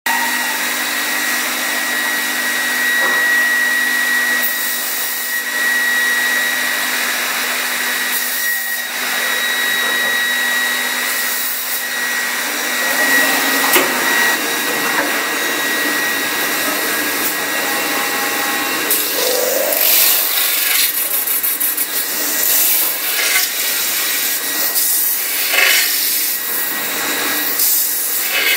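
Leico Leifeld PNC 106 CNC metal spinning lathe running: a steady whirring hiss with a thin high whine as the spindle turns the metal part under the forming rollers. A low hum drops out about halfway through, and irregular rasping surges come and go in the second half.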